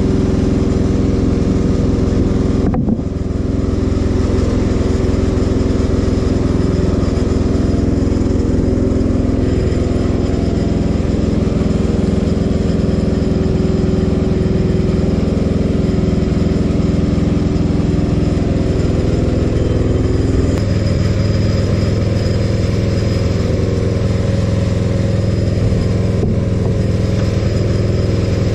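Portable band sawmill's engine running steadily under power, with a brief dip about three seconds in and a slight change in tone around twenty seconds in.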